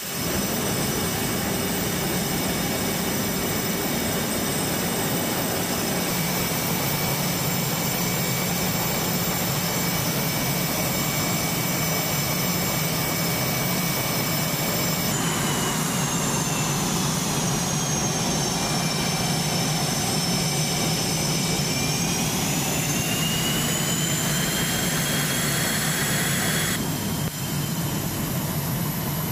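Twin turbofan engines of an F/A-18D Hornet running on the ground: a loud, steady rushing noise with several high, steady whines. About halfway through the sound changes abruptly, and the whines dip in pitch and then rise again. There is another abrupt change near the end.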